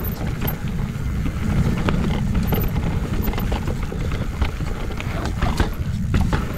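Cube Two15 downhill mountain bike on VeeTire Snap WCE tyres rolling fast down a dry trail: wind buffeting the microphone, with a constant clatter of clicks and knocks from the tyres over rough ground and the bike rattling.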